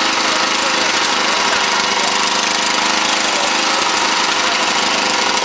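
A small engine running steadily with a fast, even knocking beat.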